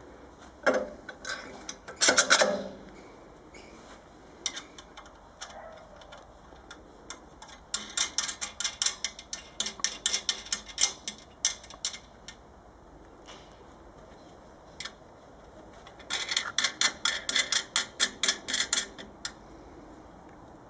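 Metal parts of a home-built steel cut-off saw's clamping vise being moved and adjusted by hand, with no motor running. A clatter comes about two seconds in, then two runs of quick metallic clicks at about three to four a second, one in the middle and one in the last third.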